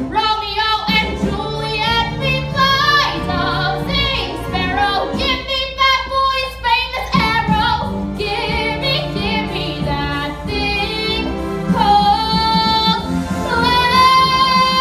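A solo woman's voice singing a musical-theatre song over instrumental accompaniment, moving through short sung phrases and then, near the end, going into a long held high note.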